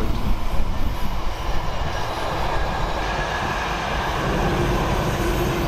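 Container freight train's wagons rolling past, a steady rumble of wheels on the rails.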